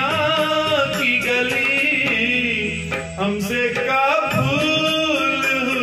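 Male vocalist singing an old Hindi film song over backing music, holding long, wavering notes.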